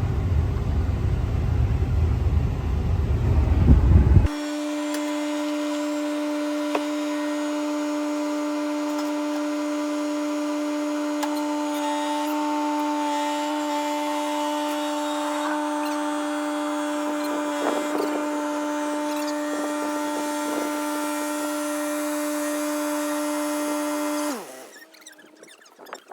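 Kubota tractor engine running with a low rumble for about four seconds. It cuts to a steady, even-pitched machine whine that runs for about twenty seconds, then drops in pitch and dies away near the end as the machine spins down.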